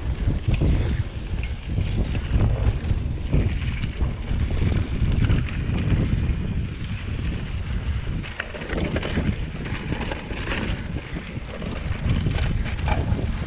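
Wind rumbling on the microphone while a mountain bike rolls along a dirt singletrack, its tyres crunching on the dirt and its parts giving scattered clicks and rattles over the bumps.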